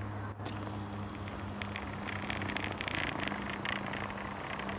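Single-engine propeller plane, a Socata TB-20, droning steadily overhead with a low, even tone. A scatter of short high ticks runs through the second half.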